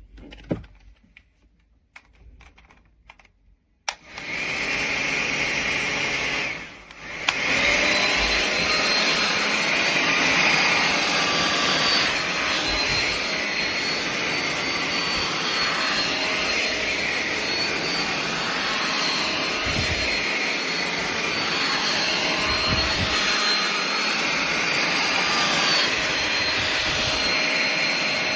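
Conair InfiniTiPro 1875-watt styling hair dryer switched on about four seconds in. It cuts out briefly around seven seconds, then runs steadily: a rush of air with a high, wavering motor whine.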